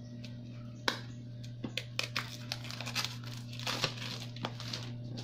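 Cardboard retail box of a DJI Osmo Mobile 3 gimbal being pried open by hand: scratchy rustling and crinkling of the packaging with scattered sharp clicks, busiest in the middle, over a steady low hum.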